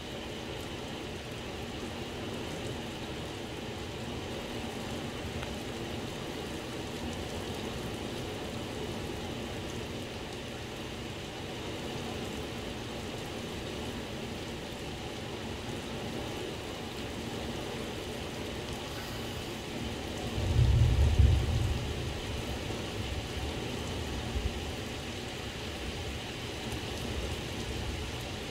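Steady rain falling through a thunderstorm, with one low rumble of thunder about two-thirds of the way through that swells quickly and fades over a few seconds.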